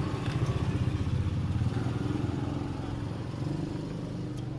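A motorcycle engine running steadily with a fast, even pulse, getting a little quieter near the end.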